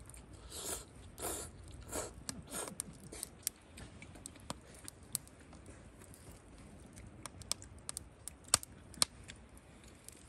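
Wood fire in a campfire grill crackling, with sharp irregular pops and snaps, and a few short soft noises in the first three seconds.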